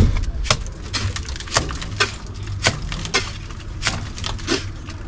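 Mason's trowel scraping and slapping mortar onto a brick chimney while applying the rough first coat of plaster, in short irregular strokes about twice a second over a low rumble.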